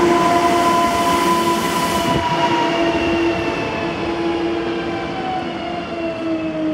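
Newag Impuls 2 (36WEd) electric multiple unit running slowly into the station, its traction drive giving a steady multi-note whine that falls slowly in pitch as the train brakes.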